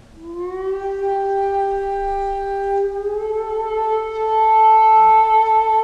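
A Japanese flute playing one long held note that scoops up into pitch at the start, then slides up a little to a slightly higher note about three seconds in and swells.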